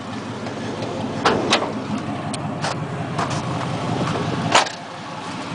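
Chevy 4.3-litre TBI V6 idling steadily, its exhaust coming straight off the Y-pipe, with a few sharp clicks and knocks over it, the loudest about four and a half seconds in.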